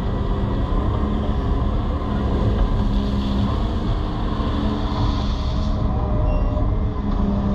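Tracked excavator's diesel engine running steadily, heard from inside the cab.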